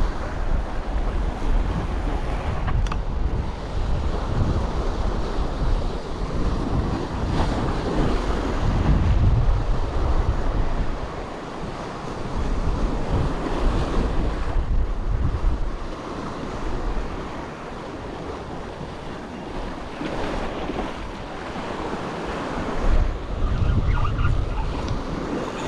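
Waves washing on the shore, with wind gusting on the microphone in low rumbling surges that rise and fall.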